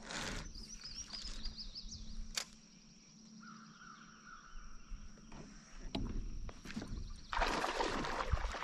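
Small birds chirping over quiet lakeside ambience, with a few sharp clicks from the kayak. About seven seconds in, a louder stretch of rustling noise takes over.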